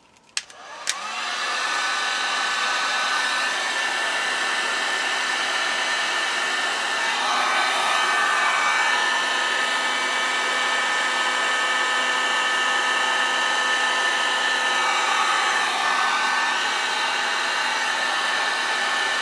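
Electric heat gun clicked on just under a second in, then running steadily: a hair-dryer-like fan blowing with a steady whine while it shrinks heat-shrink tubing over a wire splice.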